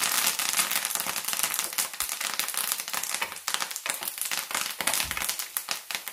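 Fresh curry leaves and crushed garlic sizzling and crackling in hot coconut oil, with many quick pops over a steady hiss, thinning a little toward the end.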